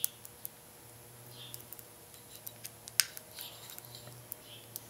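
Scattered small metallic clicks and ticks of loose roller bearings being pressed by hand into heavy grease in the bore of an SM465 transmission's drive gear, with one sharper click about three seconds in.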